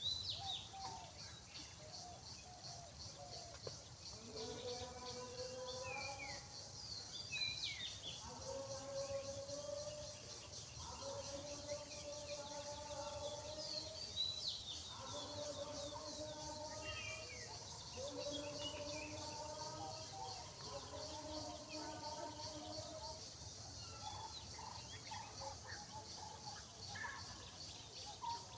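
Outdoor ambience: a steady, fast-pulsing insect chorus with scattered short bird chirps. From about four seconds in, a faint melody of long held notes rises and falls, fading out a few seconds before the end.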